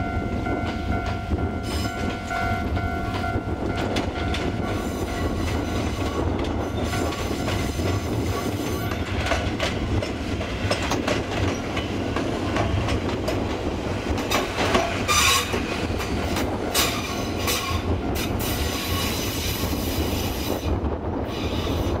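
An Ichibata Electric Railway electric train passing over a level crossing: a steady low rumble with wheels clicking over rail joints and squealing, loudest about two-thirds of the way through. In the first few seconds a steady ringing tone from the crossing warning bell is heard.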